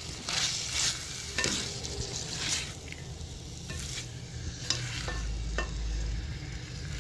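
Vegetables (shredded cabbage, capsicum and tomato) sizzling in a metal pan while a spatula stirs and mixes them. Several sharper scrapes of the spatula against the pan stand out over the steady sizzle.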